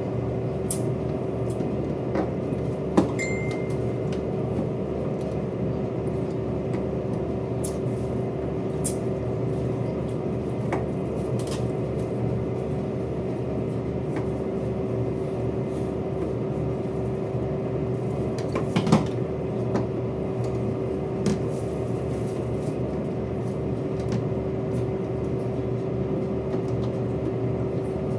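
Steady machinery drone with a constant hum-like tone running under it, and a few light clicks and knocks, the loudest about three seconds in and around nineteen seconds in.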